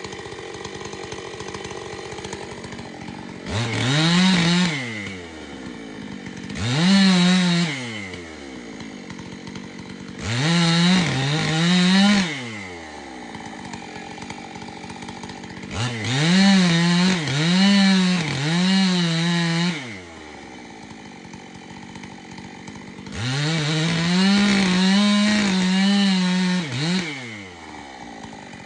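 Chainsaw engine idling and revving up to full throttle in five bursts, each lasting one to four seconds, dropping back to idle between them. The longest burst comes near the end.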